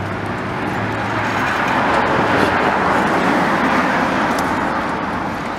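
A road vehicle passing close by: its tyre and engine noise swells to a peak about halfway through and then fades.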